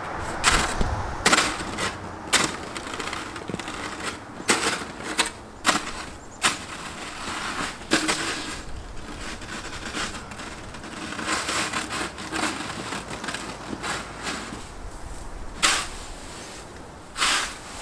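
Plastic snow shovel scraping and scooping snow, with crunching steps in the snow, in uneven strokes about a second or two apart.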